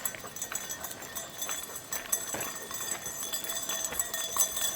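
Footsteps of a person and dogs walking on a road, with many short light clicks.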